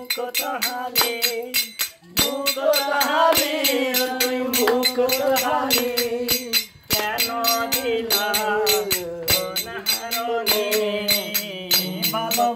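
Several men singing a Chittagonian folk song together, unaccompanied except for hand claps keeping a steady beat of about three claps a second.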